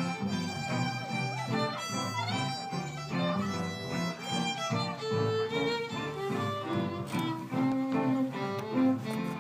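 Small acoustic band playing live: a fiddle carries the melody, with slides between notes, over acoustic guitar and upright double bass.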